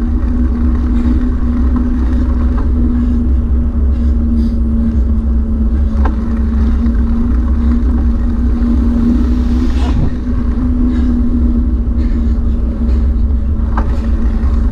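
Steady motor hum holding one even pitch, over a low rumble of wind on a moving microphone.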